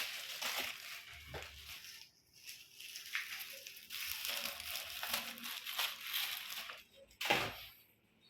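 Packaging being handled during an unboxing: irregular crinkling and crumpling rustle, with one louder crunch about seven seconds in.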